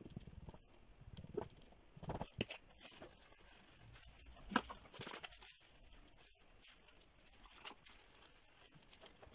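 A rag and gloved hand rubbing and dabbing over a textured, heavily painted canvas: irregular soft scuffs and taps, the loudest about two seconds in and again about halfway.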